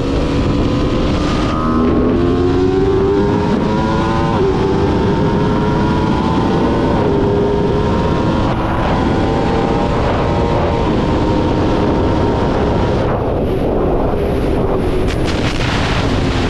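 Aprilia RSV4 Factory 1100's V4 engine pulling hard at full speed, with upshifts about two and four seconds in, over a steady rush of wind. Near the end the revs fall as the rider backs off.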